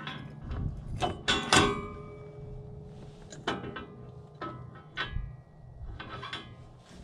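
Irregular metal clanks and knocks, several ringing briefly, as a steel middle-buster implement is hooked onto a tractor's three-point hitch. A low steady hum runs underneath and fades near the end.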